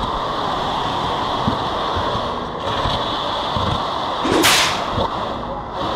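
Concrete line pump running steadily, pushing concrete through the hose into a footing form, with a few low knocks and one brief loud hissing burst about four and a half seconds in.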